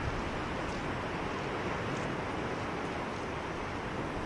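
Steady wind blowing and buffeting across the microphone, with a low rumble.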